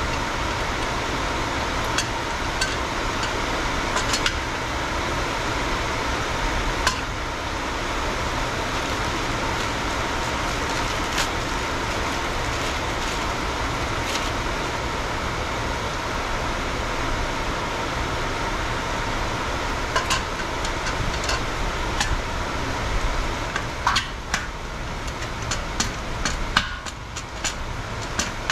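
Scattered metallic clicks and knocks of hand tools and bolts as a motorcycle swing arm is fitted and bolted in, over a steady background hiss. The knocks come thicker near the end.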